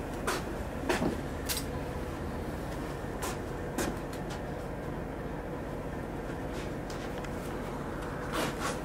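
Steady low hum of a small room, with scattered light clicks and knocks and a few rustles of camouflage clothing and gear being handled, a cluster of them near the end.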